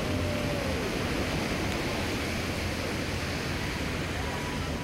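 Steady rushing noise of wind on the microphone and riding on a wet road, recorded while moving alongside cyclists.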